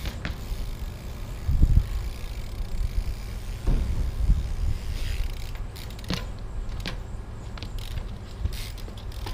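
Trials bike being hopped and ridden on pavement: creaking and clicking from the bike, with heavy thumps of the tyres hitting the ground about a second and a half in and again around four seconds, and sharp clicks later on.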